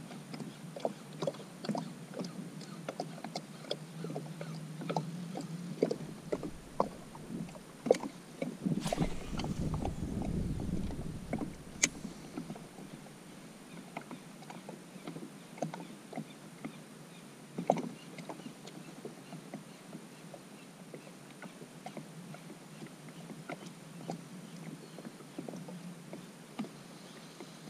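Small waves slapping and knocking against a kayak's hull on choppy water, in irregular knocks about one or two a second. About nine seconds in, a louder rush with low rumble lasts about two seconds.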